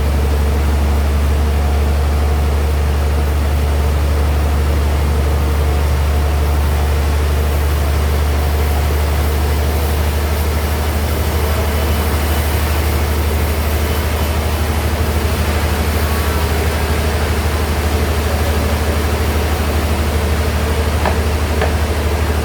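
Sawmill bandsaw machinery running with a steady, unchanging low hum and a broad noisy hiss over it.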